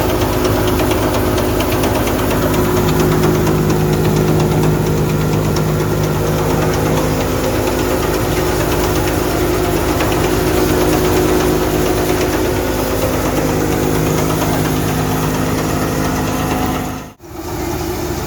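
Engine-driven wheat thresher running steadily as it threshes: a continuous engine hum with a dense fine rattle over it. The sound cuts out briefly near the end and comes back.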